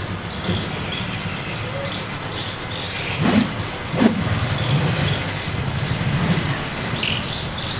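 Bamboo lathi swishing through the air as it is spun and swung, with two loud swishes about three and four seconds in, over a steady background rumble.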